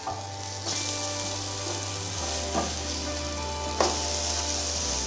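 Eggplant slices sizzling steadily as they fry in melted butter in a ridged grill pan, with two short clicks in the middle.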